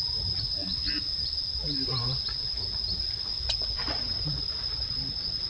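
Insects trilling steadily at one high pitch, with small chirps repeating along it.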